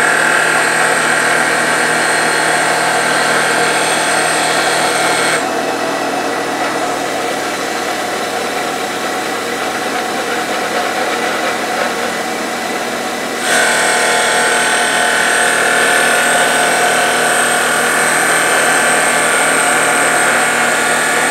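CNC-converted wood lathe running and turning a wooden spindle, the cutter working along it. A steady machine whine runs throughout. Its higher tones drop away about five seconds in and come back about eight seconds later.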